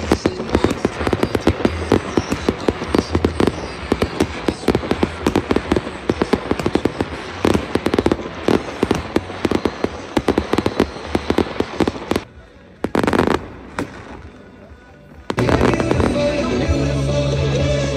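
Fireworks display: aerial shells bursting and crackling in rapid succession for about twelve seconds, then a sudden drop with one short burst. Music with a steady low note takes over in the last few seconds.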